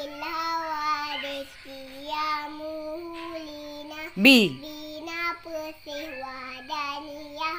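A young girl singing a memorised recitation in long held notes that step up and down in pitch. About four seconds in, a short, loud cry rises and falls in pitch.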